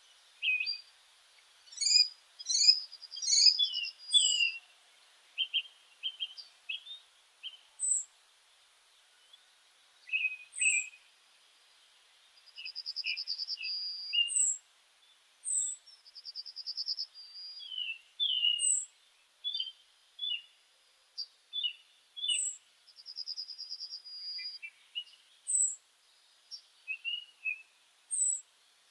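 Birdsong from more than one bird: short high whistled notes every few seconds, scattered chirps, and several rapid trills of a second or more.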